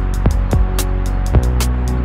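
Background music with a steady beat: a sustained bass line under regular drum hits and ticks.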